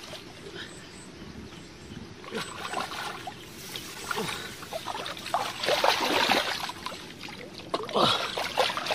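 Hands splashing and sloshing in shallow muddy ditch water while groping for and grabbing catfish, with louder splashes about six seconds in and again near the end.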